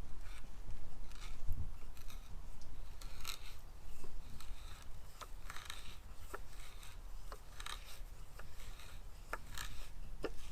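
Draw knife scraping bark off a dry rafter pole in a run of short, irregular strokes, with the odd click as the blade catches; the drier wood makes the bark harder to peel.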